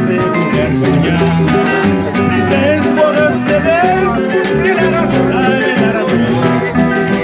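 Acoustic band music with guitars playing an instrumental passage with a steady beat.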